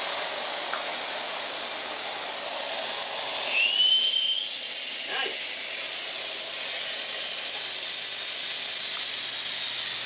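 Compressed air hissing loudly and steadily into a motorcycle rear tire through a valve stem with the core removed, inflating it to seat the tire beads on the rim. A short rising whistle sounds about four seconds in.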